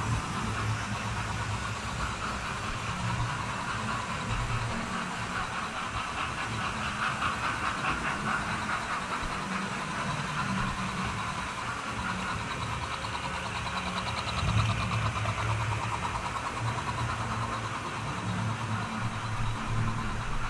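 Model railway train running: the steady whirr of its small electric motor and gears, with the wheels clicking over the track, getting a little louder about two thirds of the way in and again near the end.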